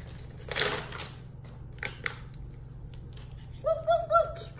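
Handling of plastic toys and packaging: a brief rustle of plastic wrapping and a few light plastic clicks. Near the end come three short, high-pitched vocal squeals.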